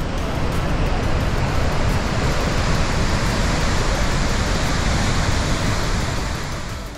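Steady rushing of Niagara's Horseshoe Falls, the dense even noise of a huge volume of falling water, fading out near the end.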